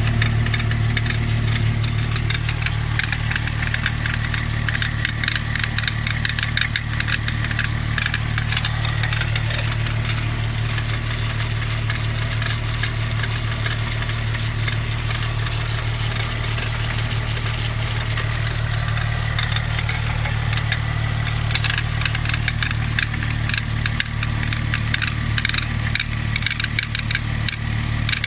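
Volkswagen VR6 engine idling steadily, with a fast ticking rattle over the running, the strange noise whose cause the owner does not know. A steady high whine sits above it.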